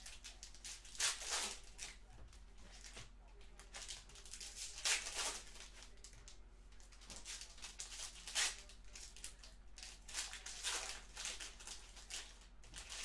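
Panini Prizm football cards and packs being handled: a series of short, dry swishes and rustles as cards are slid and flipped and pack wrappers are opened. The loudest come about one, five and eight and a half seconds in.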